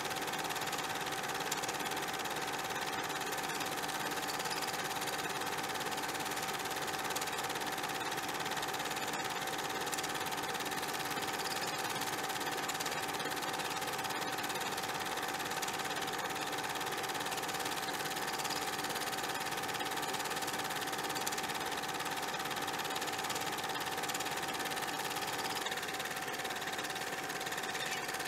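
A steady, unchanging machine-like whirr with a constant hum running through it and no breaks.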